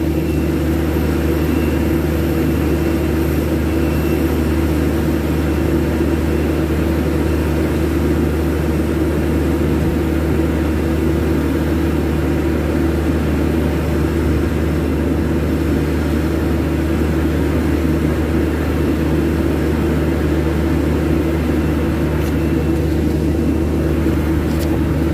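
Steady, loud machinery drone: a deep hum with a few steady tones and a mid-pitched hum above it, unchanging throughout, from running equipment on an airport apron.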